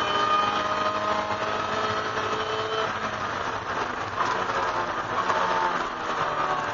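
In-cabin sound of a 1999 Mazda MX-5 Miata race car's 1.8-litre four-cylinder engine running. Its pitch sinks over the first few seconds as the car slows toward a corner, then turns to a rougher, hissier mix of engine, wind and tyre noise.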